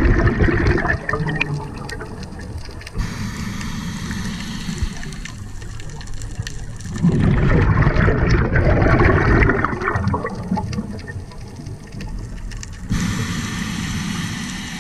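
Scuba diver's exhaled breath bubbling out of the regulator underwater in two long gushes, one fading about a second in and another from about seven to ten seconds, with a steady underwater hiss between.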